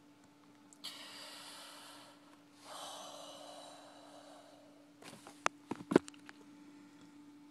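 A person breathing heavily: two long, noisy breaths close together, then a few sharp clicks or taps about five seconds in, the last the loudest. A steady low hum runs underneath.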